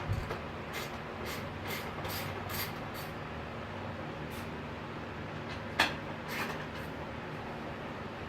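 Ferrari 360's V8 engine idling steadily, with a run of short hissing bursts, about two a second, over the first three seconds and one sharp hiss or click a little under six seconds in.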